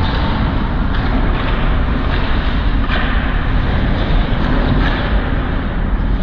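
Ice hockey rink ambience during play: a steady low rumble and hiss, with a few faint clicks and scrapes from sticks and skates on the ice.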